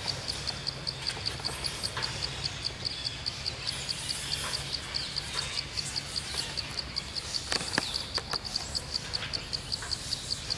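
An insect chirping in a steady, high-pitched pulse, about five chirps a second, over a low background rumble. A couple of sharp clicks come about three quarters of the way through.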